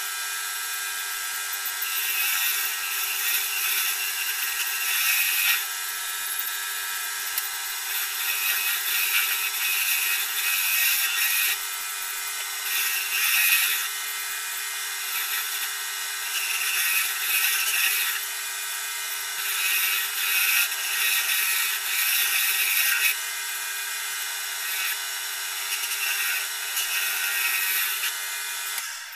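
Wood lathe running with a pen blank on the mandrel: a steady hum under a hiss that swells and eases irregularly. The sound stops abruptly at the very end.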